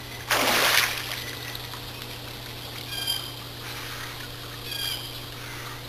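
Water splashing in a swimming pool as a person moves in it: one brief loud splash about half a second in. Later come two short high chirps, nearly two seconds apart.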